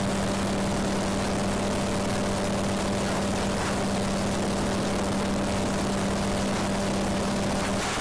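Engine and pusher propeller of an MTO Sport autogyro droning steadily in cruise flight, a constant hum over a steady rush of air.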